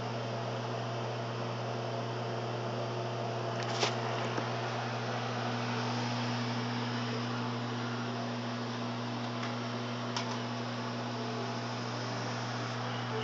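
LG microwave oven running mid-cook: a steady low hum with the whir of its fan. There is a brief click about four seconds in and a fainter one about ten seconds in.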